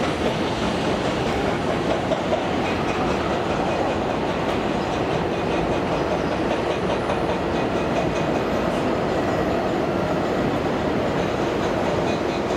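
Airbus A380's four Rolls-Royce Trent 900 jet engines during landing, a steady, even rush of noise.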